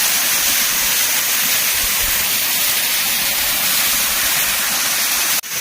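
Waterfall: a steady, loud rush of falling water. It cuts out for an instant near the end.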